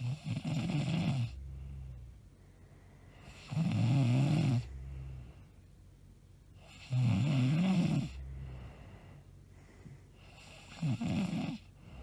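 A woman snoring loudly in her sleep: four loud snores, one about every three and a half seconds, each followed by a softer, lower breath.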